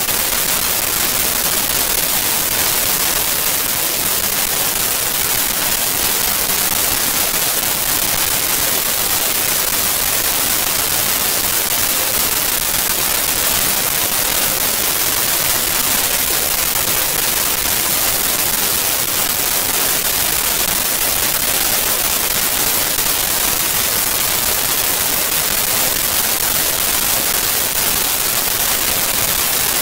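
Loud, steady hiss like static or white noise, unchanging throughout, with no other sound on top.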